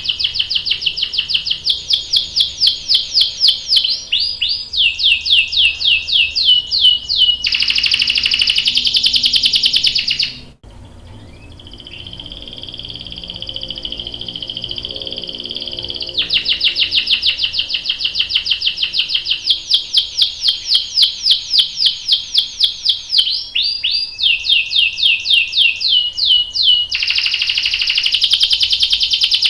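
Domestic canary singing long rolling trills of fast repeated high notes, changing from one trill to the next every few seconds. About ten seconds in the song breaks off abruptly into a softer stretch of steadier notes, then the loud trills resume.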